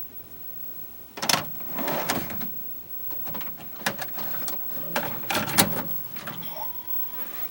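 A series of irregular knocks and clatters, loudest about a second in and again around five to six seconds in, with a faint short tone near the end.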